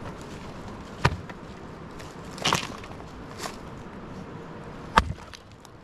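A few separate sharp knocks and crunches outdoors: one about a second in, a longer scraping crunch around two and a half seconds, and a sharp crack near the end.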